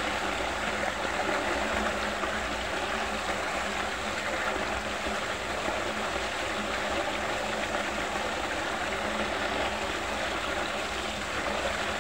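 Water swirling and draining down a whirlpool vortex, a steady rush of water with a faint low hum underneath.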